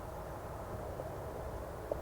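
Roosting jackdaws calling faintly and at a distance, with two short calls, the louder one near the end, over a steady low rumble.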